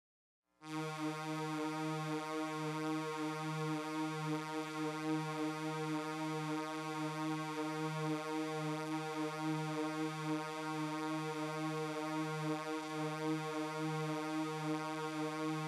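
Background music: one sustained synthesizer note, held at a steady pitch with a slight pulse, coming in about half a second in.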